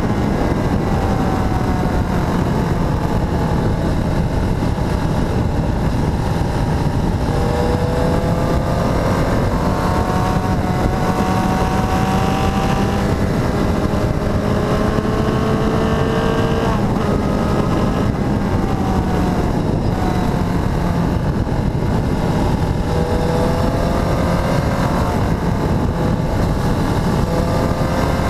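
Motorcycle engine heard from on board while riding, with heavy wind rush on the microphone. The engine pitch falls and rises several times as the bike slows and speeds up, with breaks in the rising pitch at about eight, seventeen and twenty-seven seconds in.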